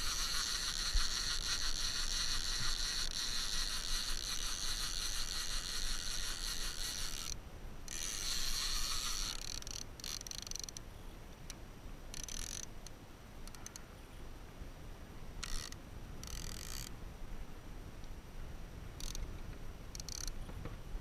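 Fishing reel being cranked to bring the line in: a steady whir for about seven seconds, then several short spurts of cranking.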